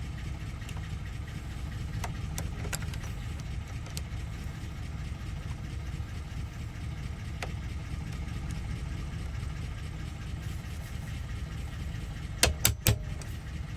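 Three quick, sharp hammer taps near the end, driving a little pin in an ignition lock cylinder until it sits flush. A few light clicks of handling come before them, over a steady low engine-like hum.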